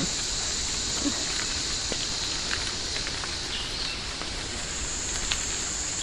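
Rainforest insects calling in a steady, high-pitched continuous drone, with scattered small ticks and crackles.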